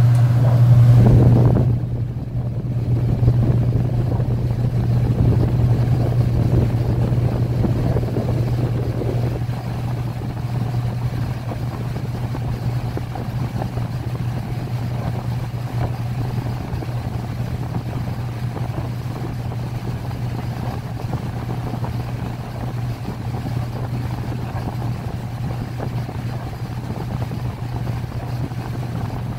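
A 2017 Speed Queen top-load washer in its spin cycle, its basket and agitator whirling round, with a steady motor hum and the rush of the turning drum. It is louder for the first two seconds or so, then settles into an even whir.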